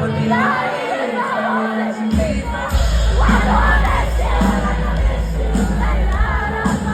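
Pop-rock song played live with a lead singer, over a crowd that whoops and cheers. The bass drops out for the first two seconds or so, then comes back in heavily under the vocals.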